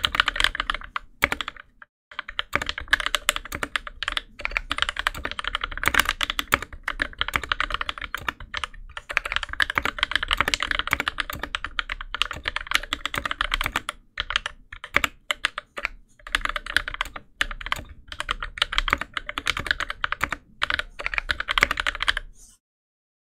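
Fast, continuous typing on an aluminium NK65 keyboard with NovelKeys Cream linear switches, lubed with Krytox 205g0 and fitted with TX switch films, under GMK keycaps. There are a few brief pauses, and the typing stops near the end.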